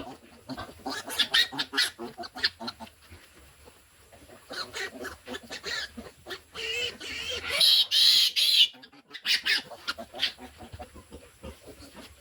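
Piglets squealing in short harsh bursts, loudest in a long shrill squeal about seven to eight seconds in, as they are handled for their iron injection.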